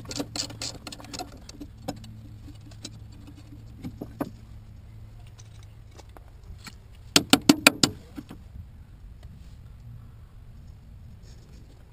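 Metal hand tools clinking and rattling against bolts as the sway bar is unbolted. There are scattered light clicks, then a quick run of about six sharp metallic clicks just past halfway.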